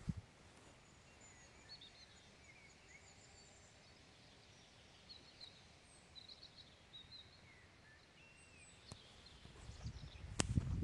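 Small birds chirping faintly and intermittently over quiet outdoor background noise. Near the end come several low thumps and one sharp click.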